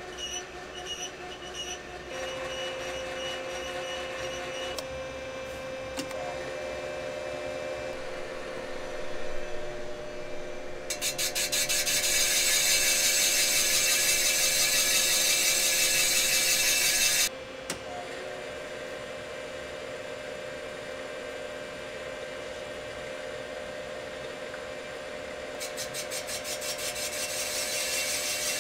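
Cylinder boring machine running on an AMC 258 straight-six's cast iron block: a steady motor hum, with a loud rasping cut from the boring bar's cutter about 11 seconds in that stops abruptly some six seconds later, and a similar rasp building again near the end.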